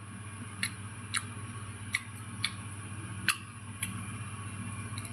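Six or so small crisp clicks, spread unevenly, as the juicy flesh of a red pomelo segment is torn and pulled apart by hand, over a low steady hum.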